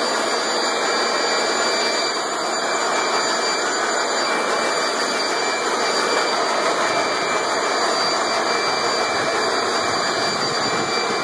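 Handheld leaf blower running steadily: a continuous rush of blown air with a steady high whine from the fan.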